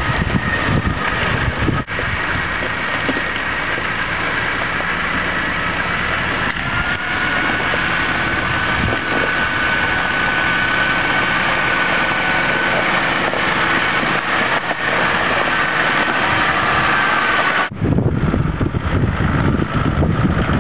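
Toyota Land Cruiser 80-series 4x4 engine running as it crawls along a rough lane, with a steady high whine over it that rises slightly in pitch partway through. About three seconds before the end it cuts to wind buffeting the microphone.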